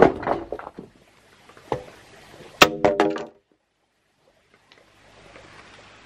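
A long green bamboo pole dragged and scraping over dry dirt, with knocks. Just before the halfway point, hollow bamboo knocks sharply and clatters with a brief ringing tone, which is the loudest sound. It cuts off dead, and after a second or so of silence a faint outdoor background comes in.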